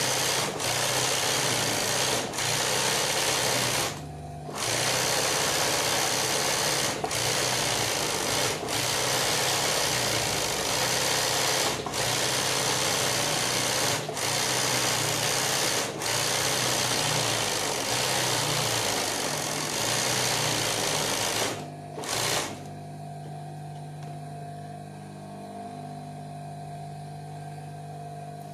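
Industrial sewing machine running fast for freehand embroidery, in long runs with a brief stop about four seconds in and a few short dips. It stops a little after twenty-two seconds, leaving a much quieter steady hum.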